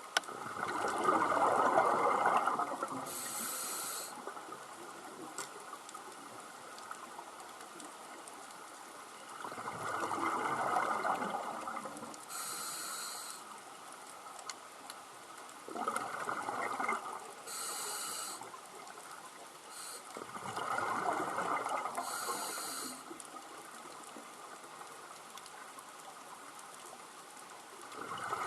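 Scuba regulator breathing underwater. About four breaths come several seconds apart, each a bubbling exhale of a second or two followed by a short hissing inhale.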